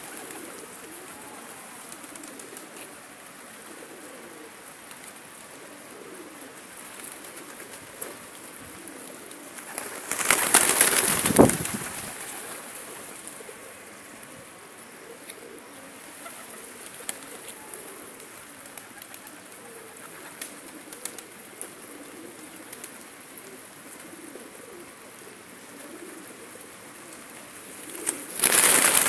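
A flock of feral pigeons cooing softly as they feed. Two loud rushes of flapping wings come about ten seconds in and again near the end.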